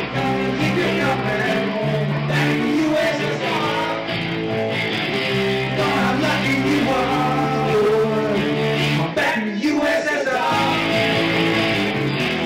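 A small rock band playing live: electric guitar, acoustic-electric guitar and bass guitar, with a man singing over them.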